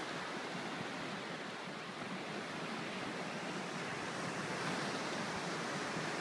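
Ocean surf breaking and washing up a sandy beach, a steady rush of noise with no distinct single waves standing out.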